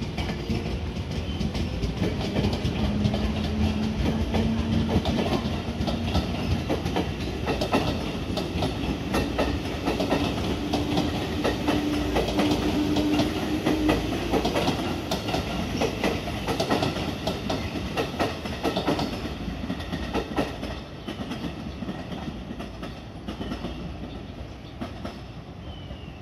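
JR West 221 series electric train running along the tracks, its wheels clacking fast and rhythmically over rail joints and points. Two steady motor tones sound, the second higher than the first. The clatter fades away over the last few seconds as the train leaves.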